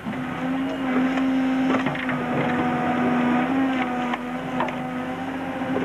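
Excavator engine running steadily under load while the bucket digs, with scattered knocks and scrapes from the bucket working through soil and stones.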